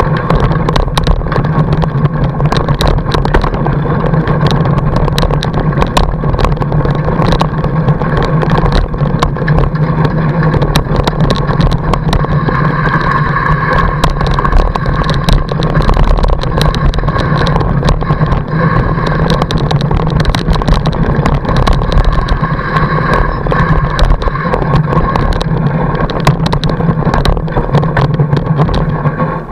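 A fat bike's wide tyre rolling over packed snow, heard through a camera mounted on the bike: a loud, steady rumbling hum with frequent clicks and rattles from the bike and mount.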